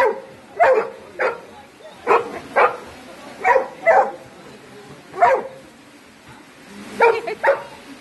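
A young yellow Labrador retriever barking: about ten short barks, often two in quick succession, with pauses between the pairs.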